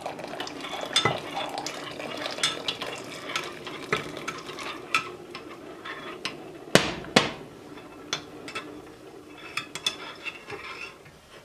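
Metal spoon stirring in a glass measuring cup, clinking and scraping against the glass over and over, as hot water is worked into melted emulsifying wax and oils to emulsify a lotion. Two louder clinks come close together about seven seconds in.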